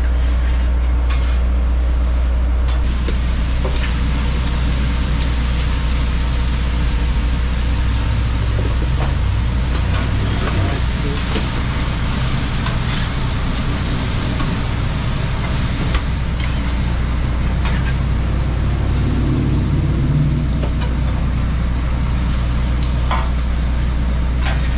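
Shrimp sizzling on a hot flat-top hibachi griddle, the frying hiss thickening about three seconds in, with scattered clicks of metal utensils. A steady low hum from the food truck's machinery runs underneath.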